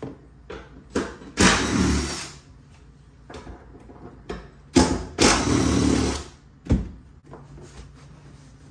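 A power tool, run in two bursts of about a second each, undoing a car seat's mounting bolts, with scattered knocks and clunks from handling the seat.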